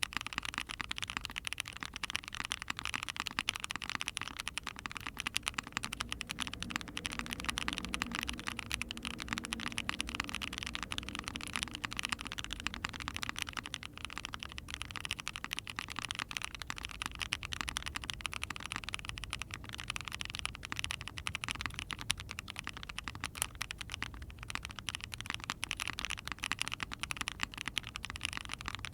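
Continuous fast typing on a mechanical keyboard: factory-lubed Agile Moon linear switches in an Ai03 Vega with a POM plate and GMK keycaps, a dense, unbroken run of keystrokes. The owner finds these switches over-lubed and dead sounding.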